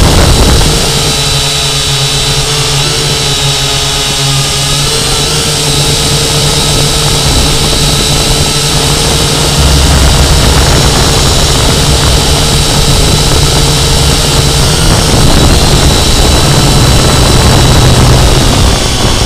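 Syma X8C quadcopter's motors and propellers running steadily in flight, a constant whine heard from the Yi camera mounted on the drone, with rough wind noise on the microphone that swells briefly about ten seconds in.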